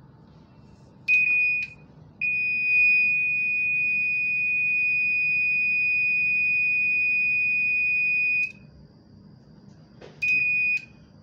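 Infusion pump's electronic beeper sounding one high steady tone: two short beeps about a second in, a long unbroken tone of about six seconds, then two more short beeps near the end. Each short beep comes with a click.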